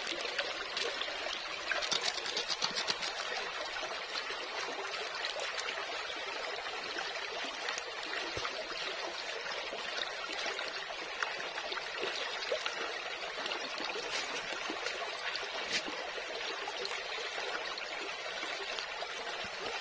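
Shallow stream trickling steadily over rocks, with a few faint clicks about two to three seconds in.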